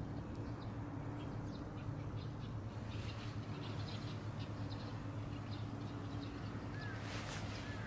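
Outdoor ambience: many short, faint bird chirps over a steady low hum, with a brief noise near the end.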